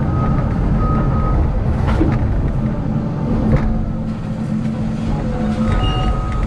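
Caterpillar excavator's diesel engine running steadily under load while its hydraulics work the boom and thumb, with a couple of short knocks and a thin high whine near the end.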